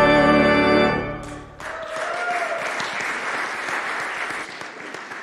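Organ and voices hold the last chord of a carol, which cuts off about a second in. Then the congregation applauds, fading toward the end.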